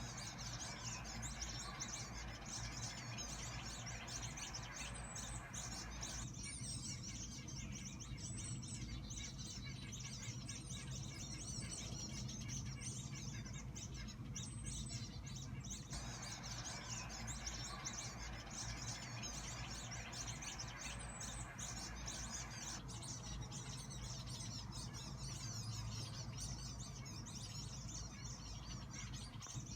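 Birds chirping and calling, a dense run of short high calls throughout, over a steady low background rumble.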